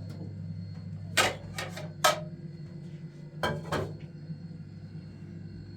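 Five sharp knocks or clatters, three close together about a second in and two more about three and a half seconds in, over a steady low hum.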